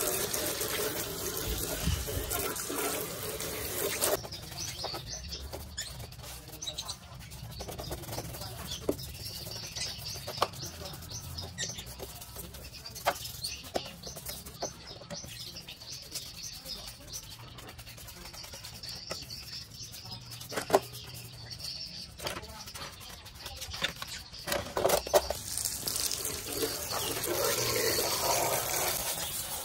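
A jet of water from a hose spraying onto a boombox's plastic casing, stopping about four seconds in. A brush then scrubs the wet casing with scattered scrapes and taps, and the spray starts again a few seconds before the end.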